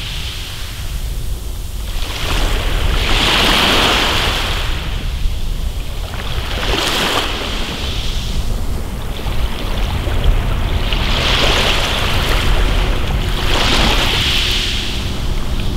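Small waves washing up a pebble beach and drawing back. Each wash is a hiss that swells and fades, four times in all, over a steady low rumble.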